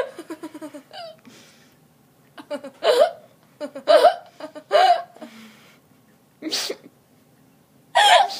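A young woman laughing in short, separate hiccup-like bursts: a quick run of low chuckles at the start, then single bursts about every second with a breathy gasp between, the loudest burst near the end.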